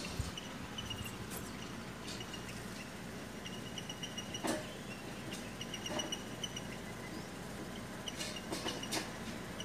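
Wooden spatula stirring potato and peas masala in a clay pot, with a few soft scrapes and knocks against the pot. Faint high chirping repeats in the background.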